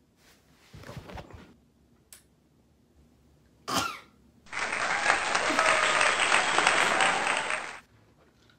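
Applause lasting about three seconds that starts and stops abruptly, after some brief handling noise and a short sharp knock.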